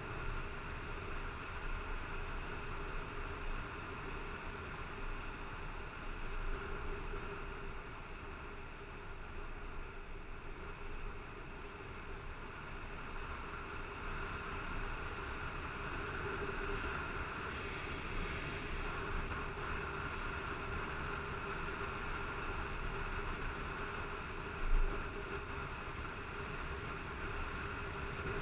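Motorcycle riding at a steady cruise, heard from the rider's helmet: steady wind rush with the engine's even drone underneath, and one short thump about 25 seconds in.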